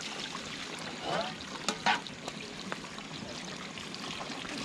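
Water running and splashing over stainless steel plates on a stone slab as they are rinsed, with a couple of sharp metallic clinks of the plates just before two seconds in.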